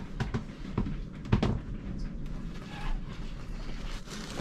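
A boat's cockpit hatch being lowered and closed, with several short knocks and bumps as it comes down and settles shut, the loudest about a second and a half in.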